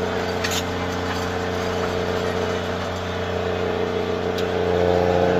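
Snow cat (snow grooming machine) engine running steadily, heard from inside the cab, growing a little louder near the end.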